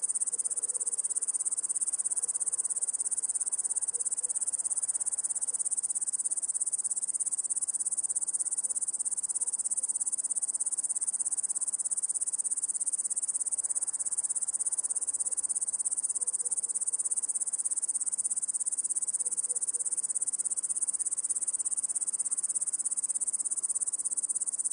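A chorus of crickets chirring in a steady, high-pitched, unbroken trill.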